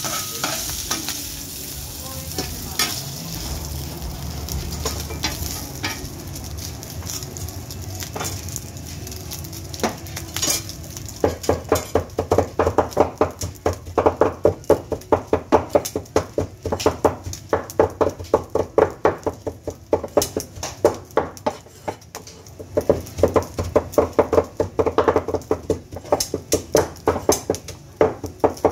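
Kokoreç (lamb intestines) sizzling on a flat steel griddle, with a spatula scraping and tongs clicking. After about eleven seconds, two metal blades start chopping it on the griddle in a rapid clatter of about four strokes a second, pausing briefly partway before starting again.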